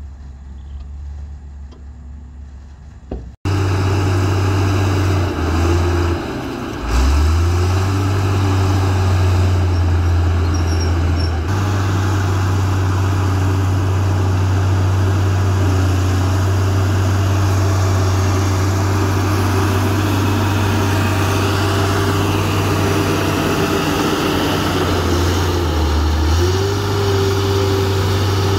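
Diesel engine of a Komatsu D53A crawler bulldozer running loud and steady while pushing soil, its pitch dropping briefly and picking back up a few seconds in and again near the end. For the first few seconds a quieter engine is heard, cut off abruptly.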